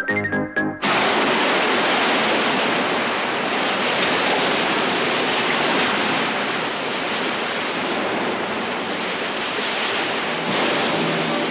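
Steady rushing of a stormy sea, surf and wind, cutting in suddenly just after a short burst of music. Near the end a few low steady tones come in under it.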